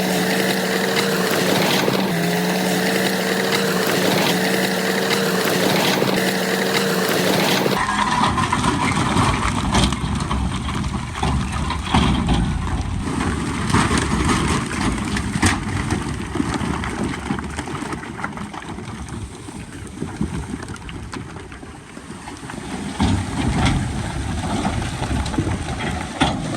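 Crawler bulldozer's diesel engine running as it works, with track clatter and scattered knocks. It opens with a steady humming tone that dips briefly about every two seconds, and changes abruptly after about eight seconds to a rougher rumble with sharp clanks.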